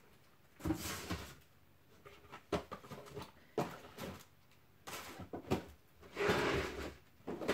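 Craft supplies being shifted and rummaged through: scattered knocks and clatters of objects being moved, with a longer rustle about six seconds in.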